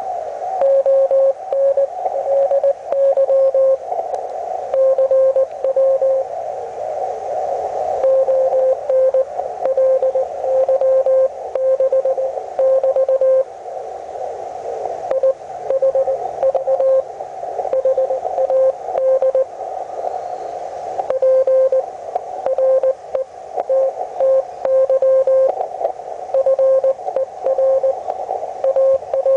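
Morse code (CW) heard through a Hendricks PFR-3A QRP transceiver: a single mid-pitched tone keyed on and off in dots and dashes, over steady hiss from the receiver.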